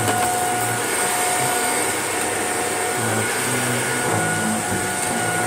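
Shark vacuum cleaner running steadily over carpet, with a high whine. A low hum comes and goes as it works, on a second run over carpet already vacuumed by a Panasonic.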